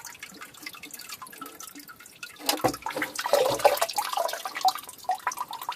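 Water splashing and dripping around an old sump pump in a flooded sump pit, with two dull knocks about halfway through as the water noise gets louder.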